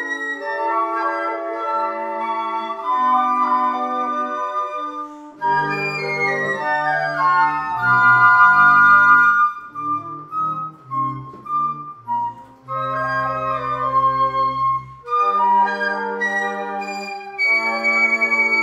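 A flute choir playing a classical piece in sustained, overlapping chords, with deep bass notes from a large low flute entering about five seconds in and again around thirteen seconds.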